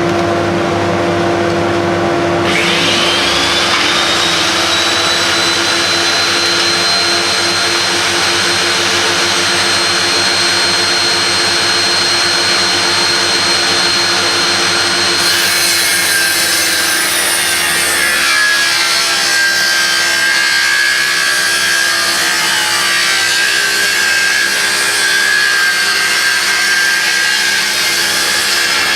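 A power saw cutting pallet-board wood to make a 45-degree cut. The motor runs first, then about two seconds in the blade bites with a rising whine, and it keeps cutting steadily and loudly. The sound changes tone partway through.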